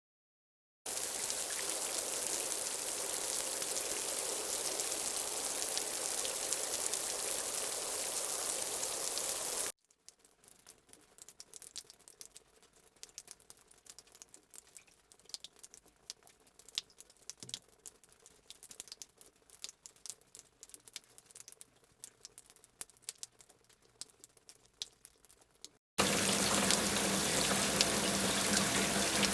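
Rain: a steady hiss of falling rain, which changes abruptly about ten seconds in to sparse, scattered drops. Near the end the steady rain cuts back in.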